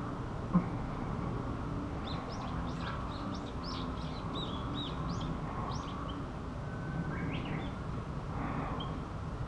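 A small bird singing a quick run of short, high chirps about two seconds in, lasting some four seconds, with a few softer calls later, over steady outdoor background noise.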